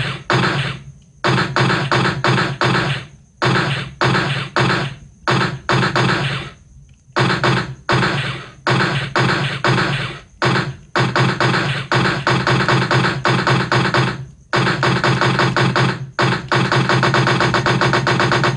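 Machine-gun fire sound effect: a string of short rapid bursts separated by brief gaps, then a long unbroken burst starting about three-quarters of the way through.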